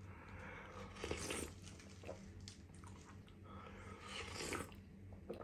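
A person slurping spoonfuls of crab and corn soup off a plastic spoon, two slurps about a second and about four seconds in.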